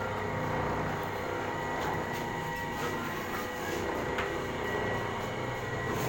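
Electric krupuk-making machine with conveyor running: a steady mechanical rumble with a constant whine and a few light clicks.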